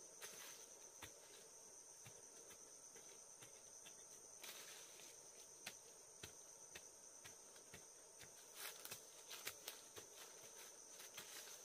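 Faint steady high-pitched insect drone, with scattered light clicks and taps throughout and a few louder clusters of them around the middle and later on.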